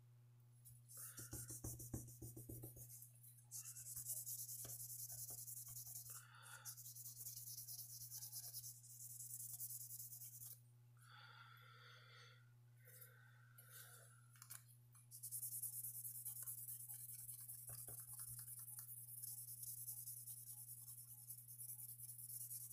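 A small strip of sandpaper rubbed by hand over a slipjoint pocketknife's handle and pins, a faint fine scratching in long runs with a pause around the middle. A steady low electrical hum sits underneath.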